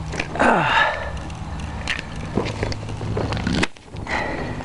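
Greenhouse polyethylene film crinkling and rustling as hands work it along a PVC pipe, loudest about half a second in, with scattered light clicks of plastic clips and pipe being handled. A steady low hum runs underneath.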